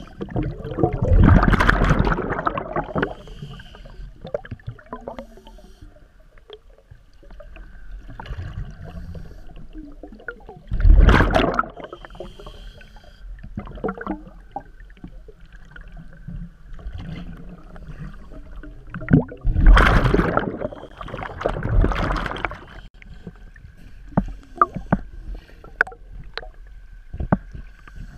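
Scuba diver breathing through a regulator, heard underwater: four loud rushes of exhaled bubbles several seconds apart, with faint clicks and a thin steady whistle in between.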